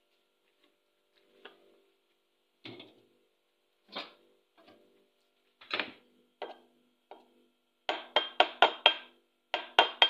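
Metal spoon clinking against a ceramic plate as it stirs and mashes soft food, in quick strokes about five a second over the last two seconds. Before that come a few scattered light knocks.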